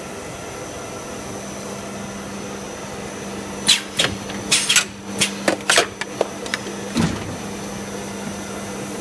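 Extrusion blow moulding machine running with a steady hum and a high whine. A little under halfway in comes a rapid run of about ten short, sharp hisses and clacks from its air-driven cylinders moving, ending in a heavier clunk.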